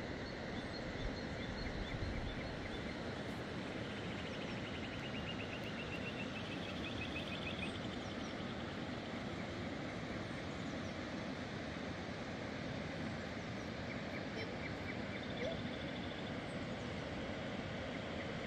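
Steady rushing of a river, with a few high bird trills over it in the middle and near the end.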